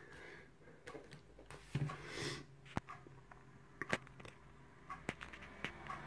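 Faint handling noise: a few separate light clicks and taps as a wooden lock-picking pinning tray is set down on a rubber mat and the camera is adjusted, with a brief soft rushing noise a little after two seconds in.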